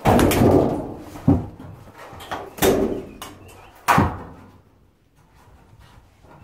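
Sheet-metal side panel of a school bus being pulled and bent off the wall, giving a run of metallic bangs and clatter, loudest in the first second and again about four seconds in.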